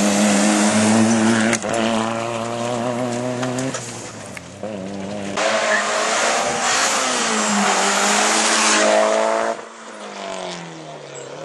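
Rally cars passing close at full throttle, one after another, including a Mitsubishi Lancer Evolution. The engine note rises and dips, and tyres and loose gravel hiss. Near the end the pitch falls as the last car pulls away.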